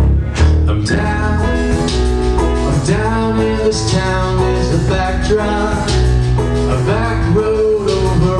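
Live music: a man singing into a microphone over a steady instrumental accompaniment, his voice gliding up and down in pitch.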